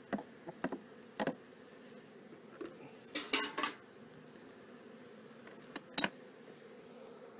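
Scattered sharp clicks and metallic clinks of a beekeeper's hive tool and smoker being handled on the hive boxes, with a cluster of ringing clinks about three seconds in and another click near six seconds. Under them runs the faint steady hum of honey bees.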